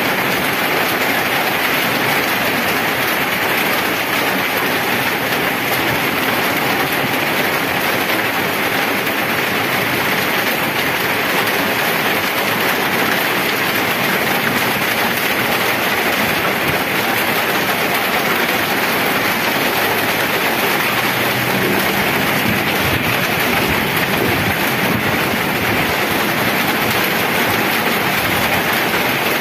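Heavy rain falling on a paved road and puddles, a steady even hiss.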